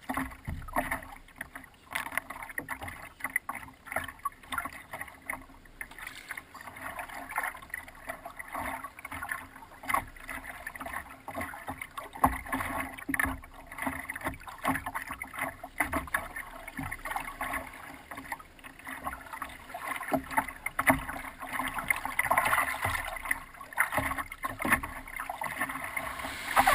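Water splashing and lapping against the nose of a wooden stand-up paddleboard as it moves through small waves, in uneven, irregular splashes.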